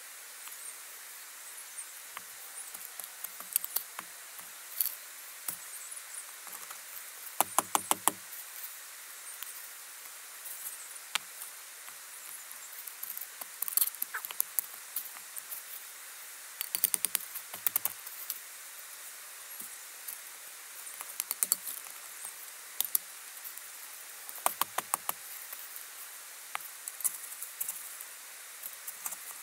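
Rocks being set into a stone fire pit: scattered clicks and scrapes of stone on stone, with three short runs of quick knocks spread through as stones are tapped firmly into place.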